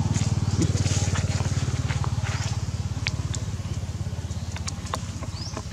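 An engine running with a steady low throb that slowly fades, with light crackles and rustles over it.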